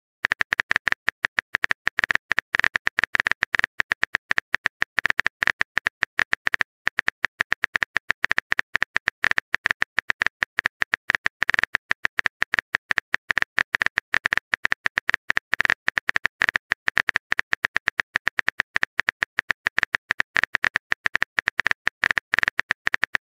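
Rapid, continuous phone-keyboard typing clicks, the texting app's typing sound effect that plays while a new message is being written.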